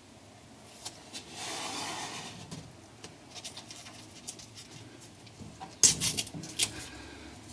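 Handling noises of dash switches and their wiring being positioned: light rustling and scattered small clicks, with a quick run of sharp clicks about six seconds in.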